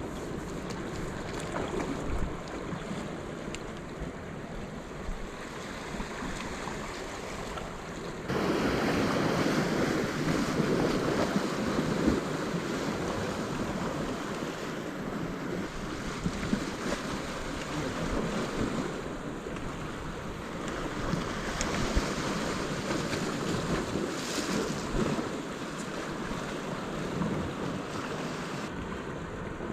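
Sea waves washing against the shore, with wind buffeting the microphone; it gets louder about eight seconds in.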